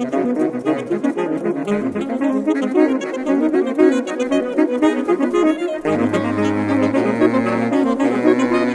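Saxophone quartet, baritone up to soprano saxophone, playing: quick running notes in the parts, changing about six seconds in to long held chords over a sustained low baritone note.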